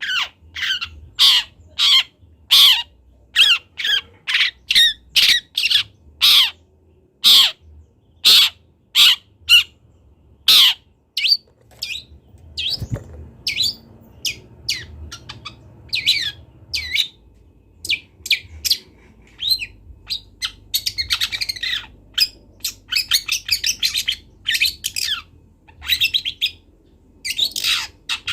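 Young long-tailed shrike calling while learning its song: a run of short, loud calls about two a second, then quicker, more varied twittering from about twelve seconds in.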